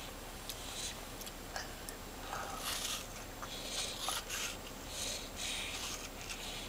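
A young child biting and gnawing at a whole apple: faint, scattered little crunches and scrapes of teeth on the skin and flesh.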